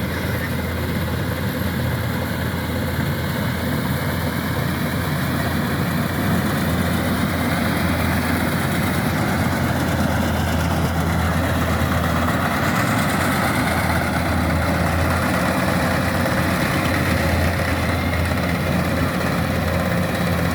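Kubota rice combine harvester's diesel engine running steadily at work, with the machinery's noise growing a little fuller about halfway through.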